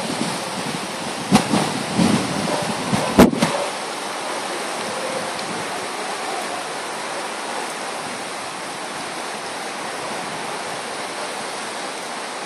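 Flood-swollen Passaic River rushing steadily, a constant noise of fast brown water over rapids. A few sharp knocks in the first few seconds, the loudest about three seconds in.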